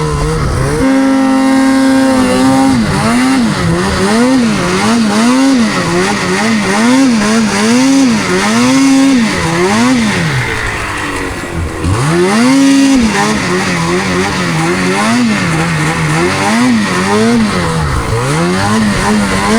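2025 Ski-Doo Summit Edge 850 two-stroke snowmobile engine revving hard, its pitch rising and falling over and over, a little faster than once a second, as the throttle is worked. The revs hold high at the start and sag briefly about twelve seconds in.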